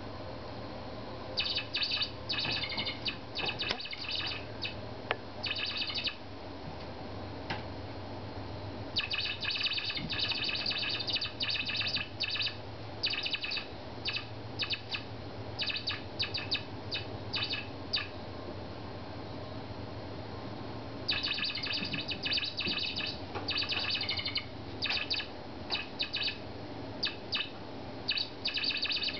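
Toy mouse squeaking in quick runs of short, high chirps as a kitten bites and bats it, with gaps of a few seconds between the runs.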